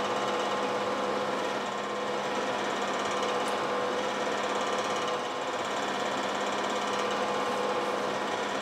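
Steady mechanical hum with a few constant tones, unchanging throughout, like a fan or similar small machine running; no distinct tool strikes stand out.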